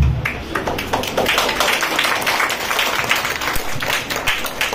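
Audience applauding, many hands clapping at once in a dense, steady run.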